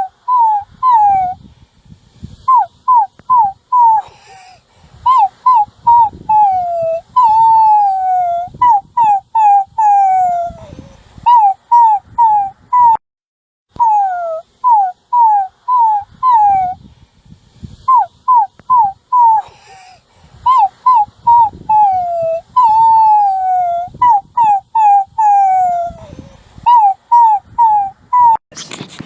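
A puppy whimpering and whining: short, high, falling-pitched yelps in quick runs of three or four, broken by a few longer, drawn-out falling whines.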